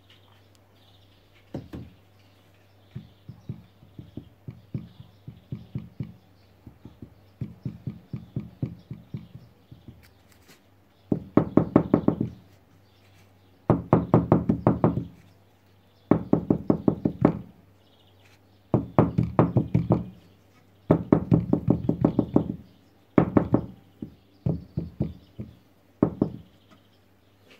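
A freshly filled casting mould being jolted against the workbench in quick runs of knocks, light taps at first and then louder bursts of a second or two each, to settle the fresh cast.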